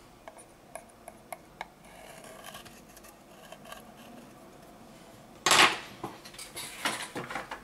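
Steel scraper blade scraping leftover shards of broken display glass off a Xiaomi Mi 8's frame, with small sharp clicks and ticks of glass and metal. About five and a half seconds in comes a short louder burst of handling noise, then a few more clicks.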